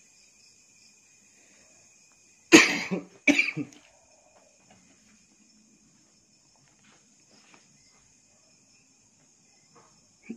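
A person coughing twice, sharply, less than a second apart, about two and a half seconds in. A faint steady high-pitched insect chorus runs behind.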